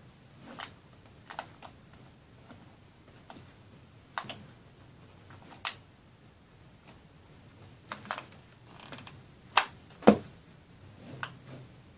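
Scattered light clicks and taps of hands working: nautical rope being hot-glued and pressed onto a small wax melt burner, with the loudest knocks near the end.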